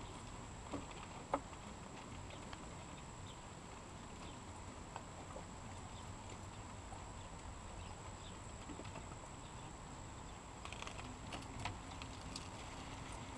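Faint wet wiping of a soapy wash mitt over an ATV's plastic body panels, with scattered light clicks and taps and one sharp click about a second in.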